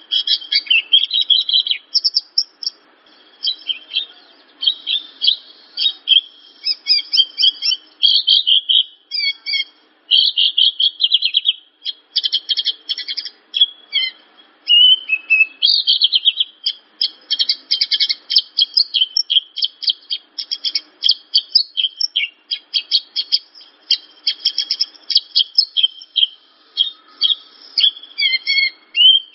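Horsfield's bush lark (branjangan) singing a long, fast, high-pitched song of chattering, twittering notes, broken by a few short pauses.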